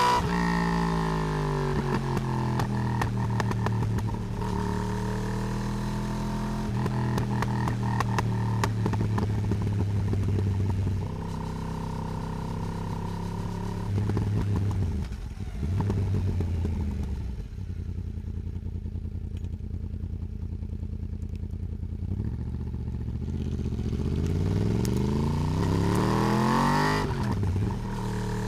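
Yamaha R1 (RN22) crossplane inline-four engine under way, heard from right beside the swingarm. The revs fall at the start, then hold through long steady stretches. After a quieter off-throttle spell in the middle, the bike accelerates hard with the revs climbing, then backs off near the end.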